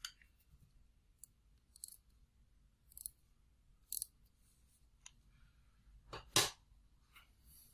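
Light, sharp clicks and taps in a quiet small room, spaced roughly a second apart, with one louder knock about six and a half seconds in.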